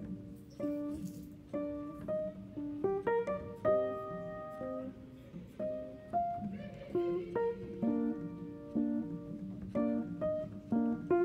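Background music: a gentle melody of plucked, guitar-like notes, each struck and then fading.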